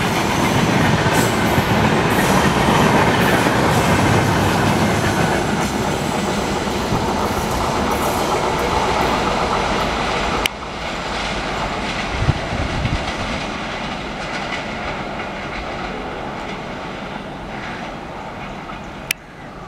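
Express train's passenger coaches rolling past at speed, wheels running over the rails. The noise drops suddenly about halfway through, then fades steadily as the end of the train moves away, with one sharp click near the end.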